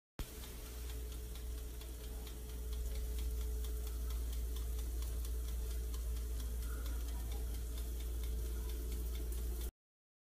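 Electric oven running with a steady low hum under a fast, even ticking, typical of its dial timer counting down. The sound cuts off suddenly near the end.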